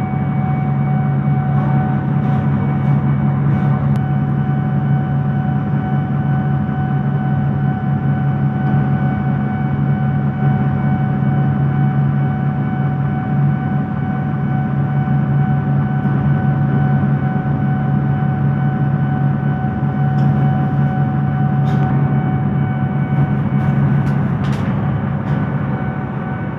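Steady engine hum heard inside a city bus cabin: a loud low drone with a fainter, higher steady whine, unchanging throughout, with a few faint clicks after about twenty seconds.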